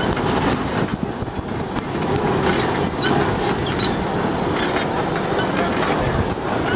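Safari truck driving along a rough track: a steady rumble of engine and tyres, with scattered rattles and knocks from the vehicle's body.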